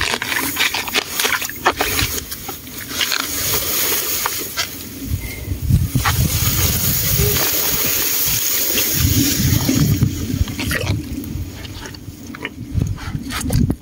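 Small boat moving through water and floating plants: water sloshing and leaves brushing along the hull, with scattered sharp knocks.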